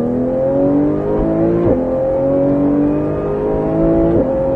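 Porsche 991 GT3's naturally aspirated flat-six accelerating hard, heard inside the cabin, its pitch climbing steadily. Two quick upshifts cut the note down, about a second and a half in and again near the end, before it climbs again.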